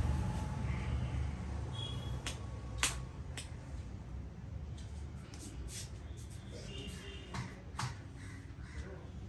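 Scattered sharp taps and slaps of a barber's hands at work during a head massage, about a dozen irregular strokes. A low traffic rumble fades early on.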